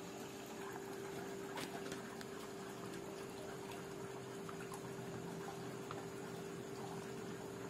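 A faint steady hum over a background hiss, with a few light clicks, the clearest about a second and a half in.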